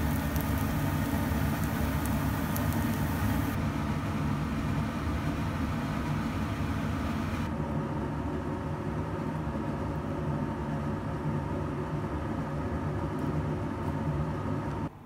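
A steady low rumble and hum of a running machine, with a hiss on top that drops away in two steps. It cuts off sharply just before the end.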